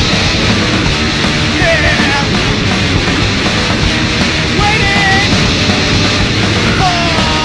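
Loud punk rock recording: electric guitar, bass guitar and drums playing together in a dense, steady wall of sound.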